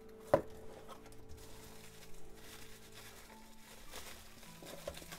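Soft rustling and crinkling of bubble wrap being handled in a cardboard box, with one sharp tap just after the start.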